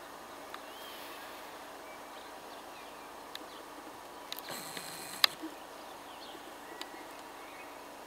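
Quiet outdoor ambience with a steady hiss, a few faint bird chirps and several sharp clicks, the loudest about five seconds in.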